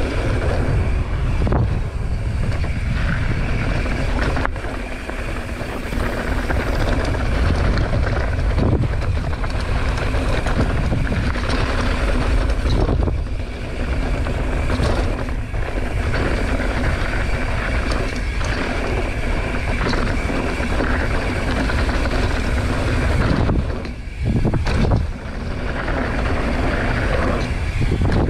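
Wind buffeting an action camera's microphone as a mountain bike rides fast downhill, with the rolling rush of the bike on the dirt trail underneath; a steady rush with a few short dips.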